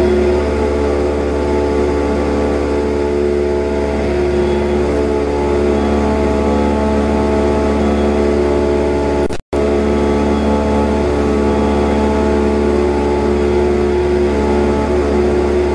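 Cessna 172's piston engine and propeller heard from inside the cockpit: a loud, steady drone in cruise flight. The sound cuts out for a split second about nine and a half seconds in.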